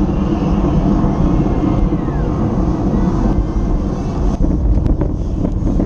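Wind buffeting a bike-mounted action camera's microphone at about 25 mph, a loud steady low rumble, with a few sharp clicks about four and a half to five seconds in.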